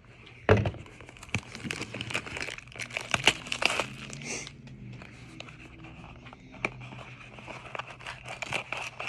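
Packaging crinkling and crackling as a sealed Upper Deck Black Diamond hockey card box is opened, busiest in roughly the first four seconds and then sparser.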